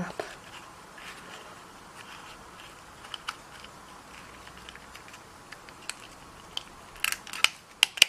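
Small handheld mini stapler being worked on a folded ribbon tab and card: faint handling with a few light ticks, then several sharp clicks in the last second as the staple goes through.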